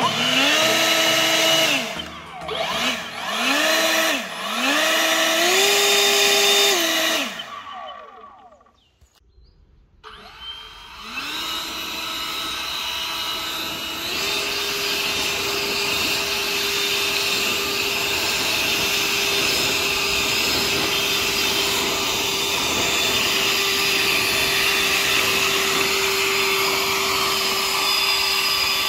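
EGO Power+ LB7650E 56-volt brushless cordless leaf blower. Its fan whine rises and falls in several short trigger bursts, then spins down to a brief quiet near ten seconds. It starts again and runs steadily with a rush of air, stepping up in pitch about fourteen seconds in as it blows leaves.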